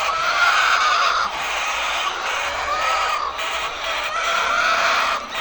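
A flock of chickens calling all at once in a dense din, with about three drawn-out calls standing out over it.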